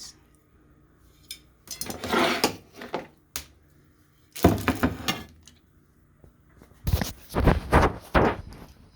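Plates and dishes being handled and pushed across a table, clattering in several separate bursts with a few sharp clicks between them.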